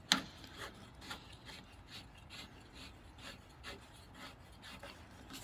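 The threaded plastic collar of a MIG welding torch's connector being screwed by hand into the welder's front socket: a sharp click as it starts, then faint rasping strokes, about two a second, as the collar is turned.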